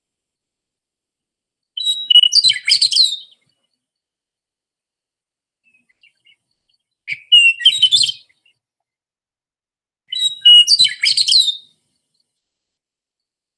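Recorded western meadowlark singing: three separate song phrases, each a quick run of clear, sliding whistled notes about a second and a half long.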